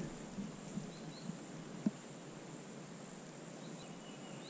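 Quiet woodland ambience: a faint, steady, high insect hum, with a few faint short high chirps near the end.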